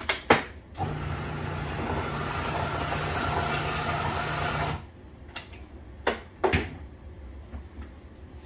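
Two sharp clicks, then a food processor motor runs steadily for about four seconds, blending a bowl of butter icing, and stops abruptly; two more sharp clicks follow.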